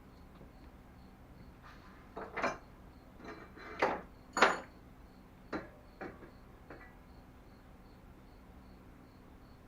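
Small metal parts and hardware clinking and knocking as they are handled on a workbench: about six separate clinks, the loudest about four and a half seconds in.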